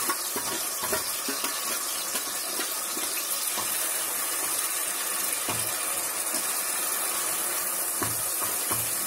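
Onion paste and ginger-garlic paste sizzling steadily in hot oil in a pressure-cooker pot, being fried until the oil separates. A steel ladle stirs and scrapes through the paste now and then, with faint clicks against the pot.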